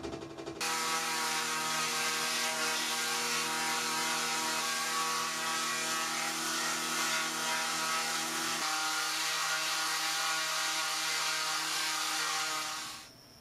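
A machine motor running steadily with a hum and hiss. It starts about half a second in, changes tone about two-thirds of the way through, and stops just before the end.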